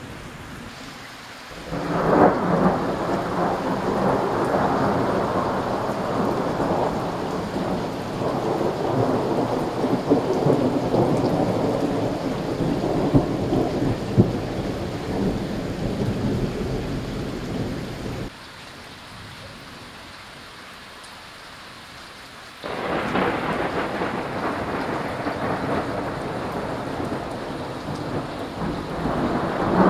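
Thunder rumbling over rain, starting suddenly about two seconds in with a loud crack-like onset and rolling on for many seconds. It drops off abruptly to a quieter rain hiss, and a second long rumble starts just as suddenly a few seconds later.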